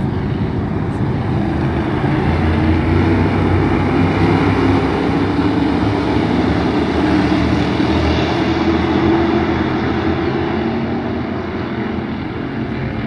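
A pack of stock cars racing on a dirt oval, many engines running together at once. The sound swells about two seconds in as the field comes by, then slowly fades near the end.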